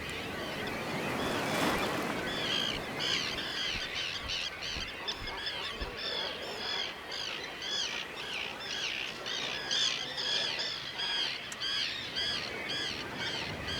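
A flock of terns calling, short harsh calls following one another about twice a second, over a steady rush of water from the open dam sluices.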